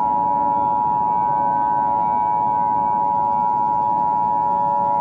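Emergency Alert System attention signal: the steady two-tone alert of 853 Hz and 960 Hz sounded together and held unbroken over a low background hiss, the warning that an emergency message is about to follow.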